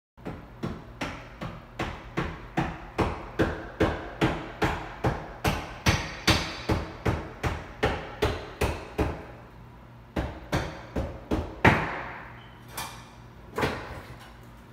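Repeated hammer blows on the old wooden bathroom vanity, knocking it loose for removal: an even run of about two to three strikes a second, a short pause about ten seconds in, then a handful more strikes.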